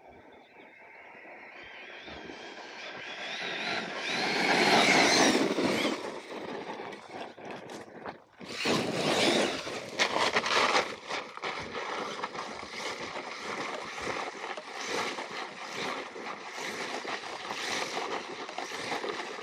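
Brushless electric RC monster truck (6S Arrma Kraton) speeding in, its motor whining higher as it closes and passing loudly about five seconds in. After a break, it drives on gravel with tyres scrabbling and the motor whining.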